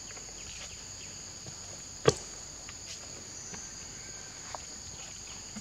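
Steady high-pitched drone of an insect chorus, with one sharp click about two seconds in.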